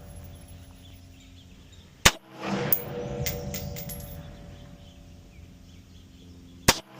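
Two loud gunshots at a firing range, about four and a half seconds apart, with fainter shots and clanks from around the range in between.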